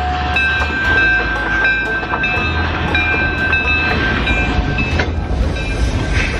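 Passenger car of an excursion train rolling along the track: a steady low rumble with scattered clicks, and high steady squealing tones that break off now and then.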